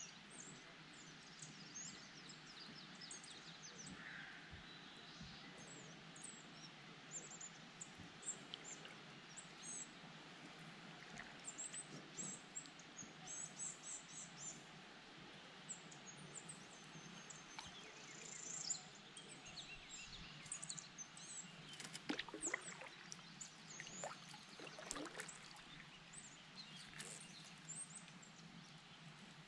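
Faint birds chirping, many short high calls scattered throughout, over a quiet outdoor background hiss. A few short, louder sounds stand out about three-quarters of the way through.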